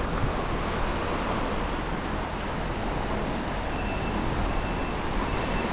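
Steady rushing wash of ocean surf on a rocky shore, mixed with wind. A faint thin high tone comes and goes near the end.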